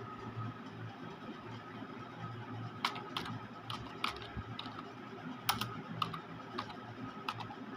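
Computer keyboard keystrokes as a word is typed into a form: about a dozen short clicks at uneven intervals, most of them from about three seconds in, over a faint steady hum.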